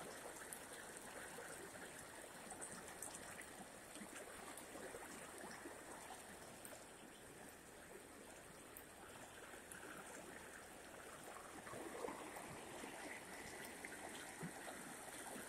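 Faint, steady rush of fast-flowing muddy floodwater.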